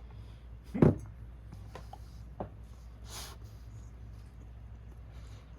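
A single dull thump about a second in over a steady low hum, followed by a faint click and a short hiss.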